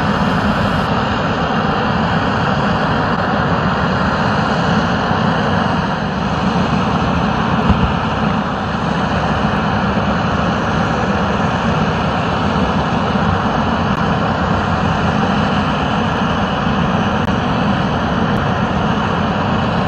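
Aircraft engines running steadily on an airport apron: a loud, continuous rush with no blade beat and no rise or fall in pitch.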